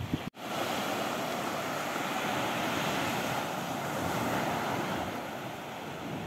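Small waves breaking and washing up on a sandy beach: a steady surf hiss that swells and eases gently, cutting in suddenly just after the start.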